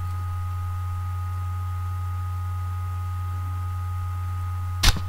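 Steady low electrical hum in the recording, with two faint steady higher tones over it, and a short click near the end.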